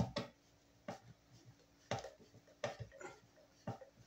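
Screwdriver working the ground terminal screw of a metal breaker disconnect box: irregular light clicks and taps of metal on metal, a few a second.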